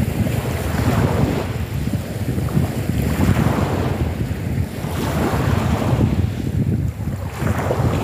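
Small choppy waves breaking and washing onto a pebble beach, a new wash swelling and fading about every two seconds, under heavy wind rumbling on the microphone.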